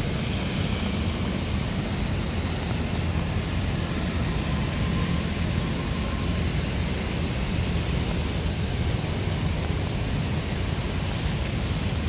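Rain and city traffic ambience: a steady, even hiss over a constant low rumble.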